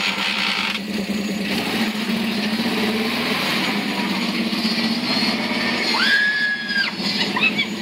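Jeep Wrangler YJ engine running under load as the mud-tired Jeep crawls through a deep mud rut, its pitch wavering with the throttle. About six seconds in, a high tone rises, holds for about a second and stops.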